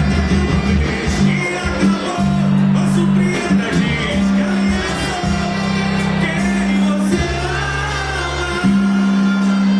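A band playing a song with a singer, over held bass notes that change every second or so.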